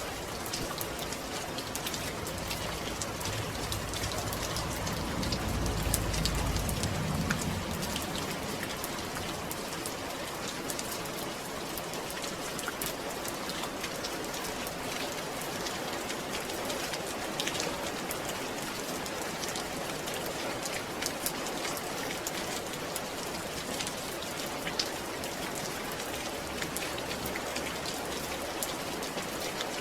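Steady rain falling, many close drops pattering on a surface, with a brief low rumble about five seconds in.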